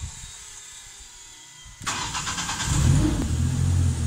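Boom lift's engine cranking about two seconds in, catching within a second and settling into a steady idle: the first start after its fuel tank and fuel hoses were replaced.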